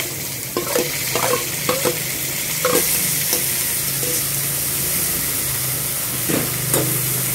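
Cooked moong dal sizzling in hot tempering oil in a metal kadai while a slotted steel spatula stirs it and scrapes the pan. The frying hiss grows louder about three seconds in.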